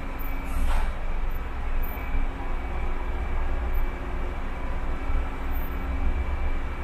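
Car driving on a wet city road: a steady low rumble of engine and road with an even hiss of tyres on wet pavement, and one brief sharper hiss, like a splash, about half a second in.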